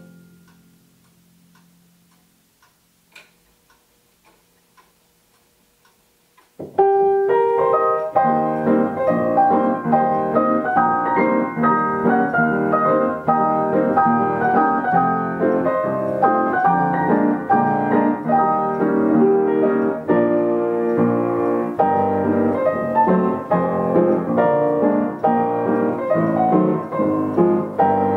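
Upright piano: the last chord of one tune rings away, then a few seconds of near quiet with a faint click or two, then the next tune of the medley starts about seven seconds in, played with full chords in a steady rhythm.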